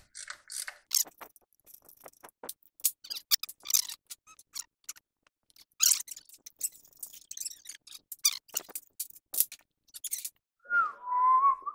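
Irregular clicks and light metallic clinks of hand tools and parts being worked at a Volkswagen Beetle's front brake drum and hub. Near the end a wavering high tone comes in.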